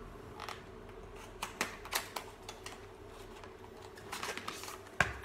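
A small cardboard box being handled and opened, with scattered light clicks and scrapes of card and a sharper click about five seconds in.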